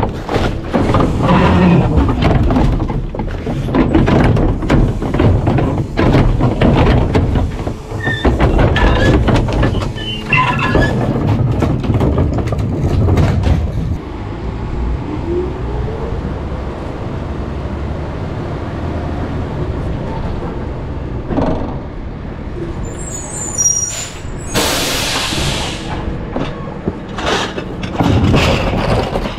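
Rear-loader garbage truck with its engine running while bags of trash are thrown into the hopper, landing with knocks and rustling. Near the end comes a loud burst of air hiss lasting about a second and a half, like an air brake releasing.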